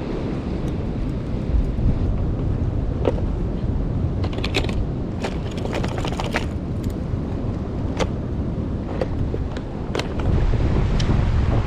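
Strong wind buffeting the microphone with surf behind it, and scattered sharp clicks and knocks through the middle.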